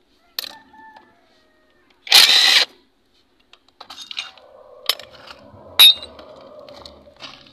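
Cordless impact wrench hammering in one half-second burst about two seconds in, undoing bolts on a Toyota 2E engine block. From about four seconds it runs with a steadier hum, broken by a few sharp metallic clinks.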